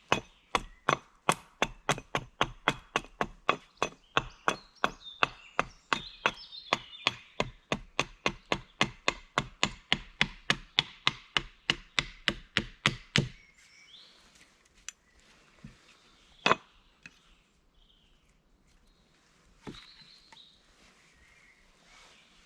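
Wood being chopped with steady, even blows, about three a second, for some thirteen seconds. The blows stop, followed by a few scattered knocks, one loud one near the middle of the quiet stretch.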